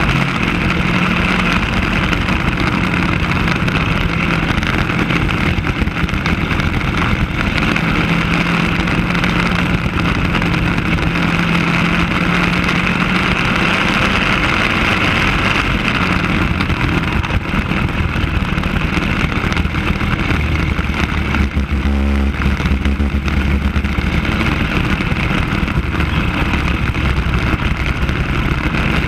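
Racing kart's engine running at speed, heard from a camera mounted on the kart, steady throughout with its pitch dropping lower about two-thirds of the way through.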